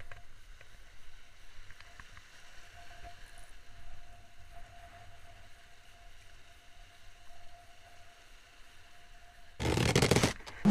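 Faint, steady wash of surf from waves breaking on rocks, with a thin steady hum under it. About nine and a half seconds in, a loud rush of noise takes over.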